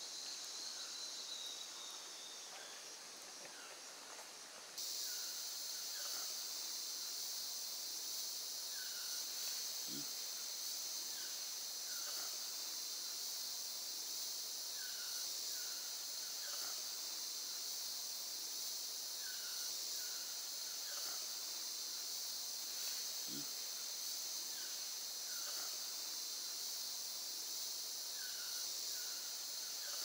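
Rainforest insects in a dense, high-pitched chorus, which grows suddenly louder about five seconds in. Short chirping calls come in twos and threes every second or two over it, and two soft low thumps come about ten and twenty-three seconds in.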